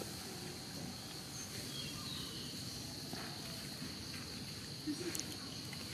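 Outdoor ambience: a steady high insect drone held over low background noise, with a few faint chirps and a brief tap about five seconds in.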